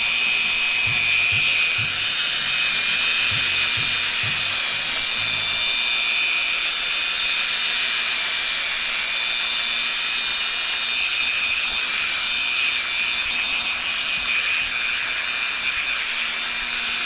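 Power drill running at a steady speed with a polishing pad buffing polish into a plastic headlight lens, a constant high whine with faint rhythmic rubbing underneath in the first few seconds.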